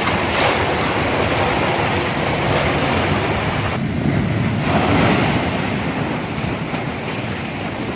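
Cyclone storm: strong gusty wind with a steady, dense rush of water, the wind buffeting the microphone. The upper part of the rush eases briefly about four seconds in.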